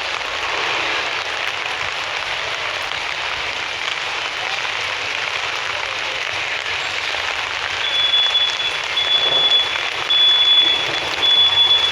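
Steady hiss of rain falling on a city street. About two-thirds of the way through, a high electronic beep starts repeating about once a second.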